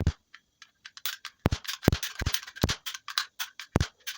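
Paper cap roll gun firing, a quick irregular string of sharp pops and clicks as the caps go off indoors.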